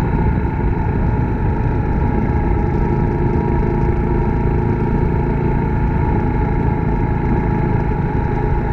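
Suzuki Grass Tracker Big Boy's 250 cc single-cylinder engine running steadily at an even pitch, with a dense low rumble throughout.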